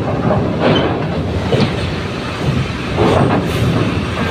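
Tour bus driving out of a car ferry's bow door onto the steel loading ramp: a steady low rumble of engine and tyres, with several clanks as the wheels cross the steel ramp plates.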